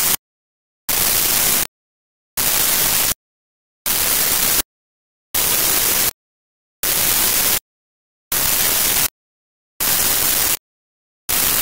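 Loud bursts of hissing static, each about three-quarters of a second long, switching on and off about every second and a half, with dead silence between them.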